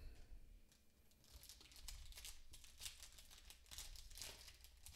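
Faint crinkling and tearing of a 2018-19 Upper Deck Series 2 hockey card pack's foil wrapper being opened by hand, starting about a second in as a run of small crackles.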